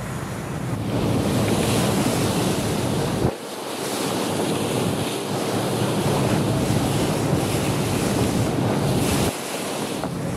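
Wind buffeting the microphone over waves washing at sea, a steady loud rush that changes abruptly about three seconds in and again near the end.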